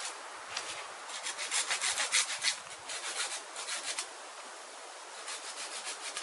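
Rapid rasping scrapes on the cane shelter frame as it is worked by hand. The strokes come thick and fast from about a second in, thin out after about four seconds, and a few more come near the end.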